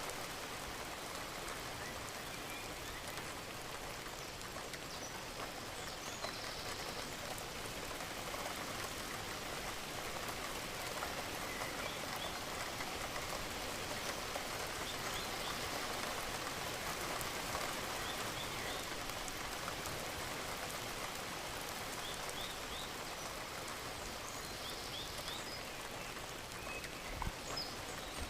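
Steady rain falling on a surface, with single drops heard through it, and a dull low thump near the end.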